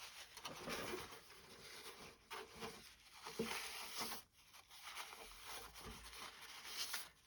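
Faint scraping and rubbing of plastic, with small ticks, as drilling debris is cleaned out of the prop shaft hole in a plastic model ship hull.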